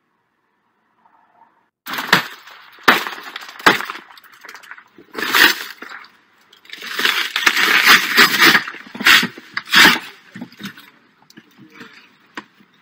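A car's side window being smashed, heard from inside the car. Starting about two seconds in come several sharp blows on the glass, about a second apart, then a longer stretch of breaking, crunching glass with further blows.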